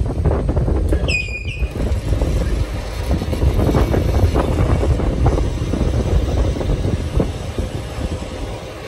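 Lathe running, turning a welded steel axle shaft while a flat file rasps against the spinning flange and shaft. A short high squeal drops in pitch about a second in.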